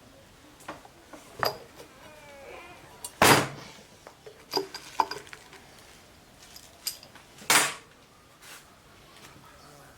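Metal parts of a newly unpacked lathe chuck being handled: a run of sharp metallic clinks and knocks, with two brief, louder scraping noises, about three seconds in and again at about seven and a half seconds.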